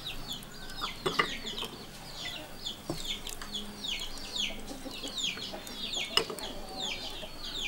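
Chicks peeping: a steady run of short, high notes that each slide downward, a few every second. Two sharp knocks stand out, about a second in and about six seconds in.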